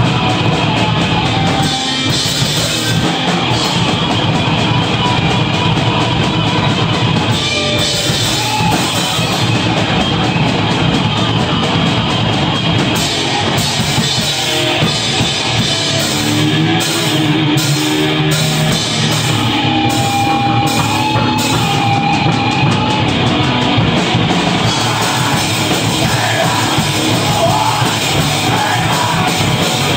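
Live rock band playing heavy rock on electric guitars and drum kit, loud and steady.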